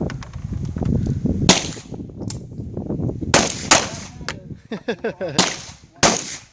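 Handgun shots fired at an uneven pace: about five loud reports with fainter shots between them, each with a short echo.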